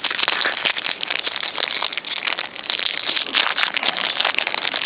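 Foil Yu-Gi-Oh booster pack wrapper crinkling continuously as it is handled, a dense crackle of many small clicks.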